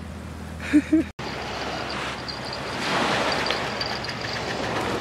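Steady rushing noise of wind and surf on a beach, swelling a little in the middle, after a short vocal sound and an abrupt cut about a second in.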